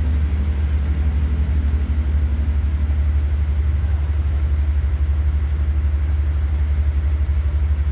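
Diesel engine of a standing passenger train idling: a steady, deep rumble with a fast, even pulse that does not change.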